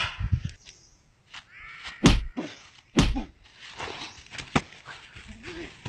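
Two loud whack-like hits of a mock fight's blows, about two and three seconds in, about a second apart, with smaller knocks and scuffs between.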